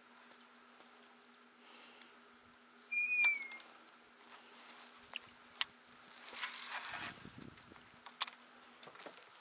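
A bird's single falling whistled call about three seconds in, over a steady low motor hum that stops near the end. There are a few sharp clicks and a brief rustle.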